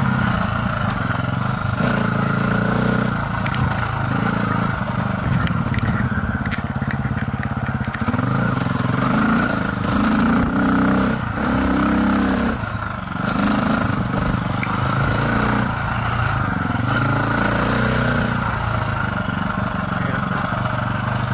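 Dirt bike engine running while the bike is ridden, its pitch rising and falling every second or two as the throttle is opened and closed.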